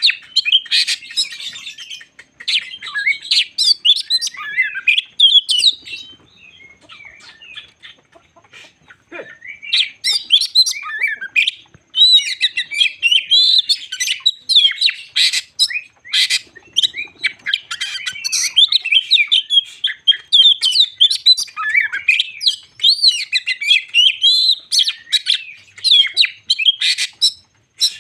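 Magpie-robin (kacer) singing a long, varied song of rapid whistles, trills and sharp clicking notes. The song drops to softer, sparser phrases for a few seconds in the middle, then picks up again fully.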